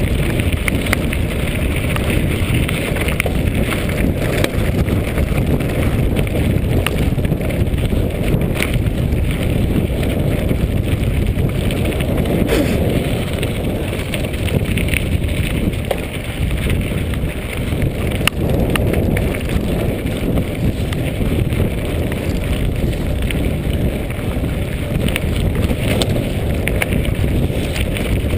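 Mountain bike rolling over a loose gravel and rock track, tyres crunching and the bike rattling with frequent small clicks, under heavy wind buffeting on the microphone.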